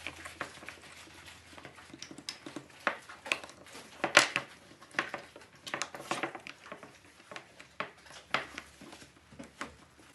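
Irregular light knocks, clicks and rubbing as a new rubber pad is pressed and seated onto the underside of a CNC vacuum pod.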